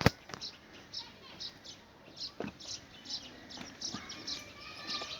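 Small birds chirping over and over in short, high chirps, several a second, with a sharp click at the start and a couple of dull knocks.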